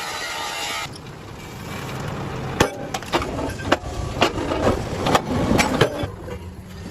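Factory metalwork noise: a steady machine hiss cuts off about a second in, followed by a run of sharp knocks and clanks, roughly two a second.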